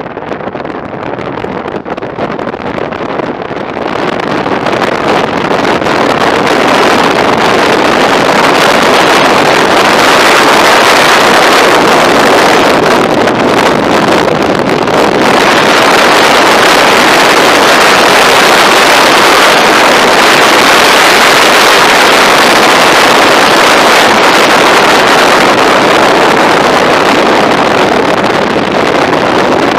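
Loud, steady wind rush on a helmet-mounted camera's microphone while riding a Honda ST1300 motorcycle at speed, swelling about four seconds in.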